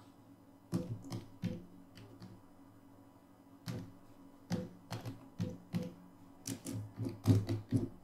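Computer keyboard keys tapped in short, irregular runs of keystrokes, with a pause of about a second and a half early on and a quicker flurry near the end.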